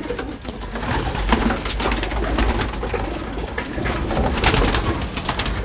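A crowd of racing homer pigeons cooing and shuffling in a loft box, with bursts of wing flapping, busiest near the end.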